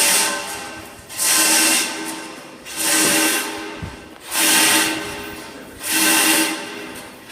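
A church bell struck steadily, about once every one and a half seconds, four strokes in all. Each stroke rings with several clear tones that fade before the next.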